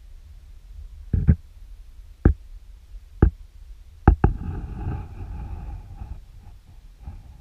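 Sharp knocks, three about a second apart, then a quick double knock followed by a couple of seconds of low rumbling, scraping handling noise.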